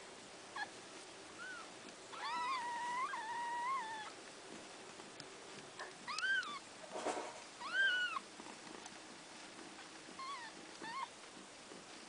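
Day-old kittens mewing while they jostle to nurse. There are high, thin, arching mews: one long wavering cry about two seconds in, two sharp mews in the middle and a few smaller ones near the end. They are hungry newborns' cries: the uploader later judged the kittens were not getting enough milk.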